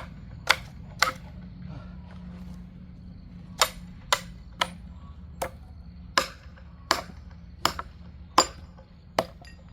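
Steel wedge being driven into very hard firewood with a hammer: about a dozen sharp, ringing metal-on-metal blows, three quick ones, a pause of two seconds or so, then a steady run of strikes.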